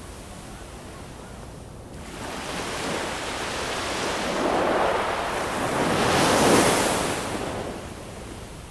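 Ocean waves on a shore. One wave builds from about two seconds in, is loudest a little past the middle, and washes back out near the end, over a steady low hiss.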